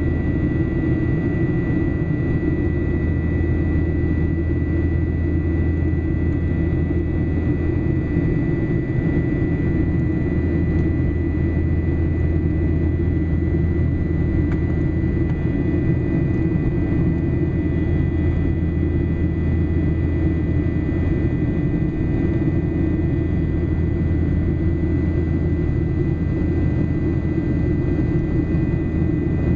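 Steady drone of a Boeing 737-800/900 airliner in flight, heard inside the passenger cabin. The low noise of airflow and its CFM56-7B turbofan engines carries a faint, steady high whine.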